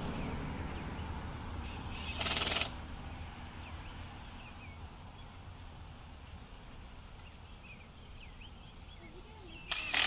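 Two short, harsh rasping noises, each about half a second: one about two seconds in and one at the end. They sound over faint outdoor hiss, with a few faint bird chirps in between.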